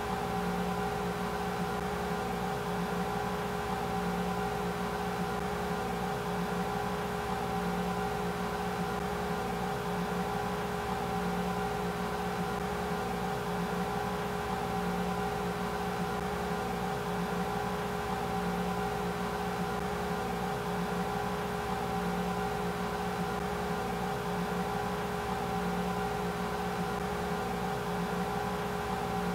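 Steady mechanical hum with a few held tones, one middle and one higher, and no change in level.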